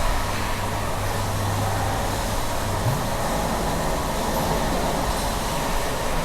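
Milking-shed machinery running steadily: a continuous mechanical rumble, with a low hum that cuts off with a click about three seconds in.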